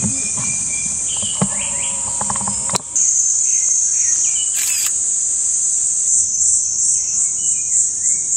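Cicadas buzzing loudly and steadily, the buzz pulsing about four times a second over the last couple of seconds. Under it, a Japanese paradise flycatcher calls close by in short whistled notes, several times.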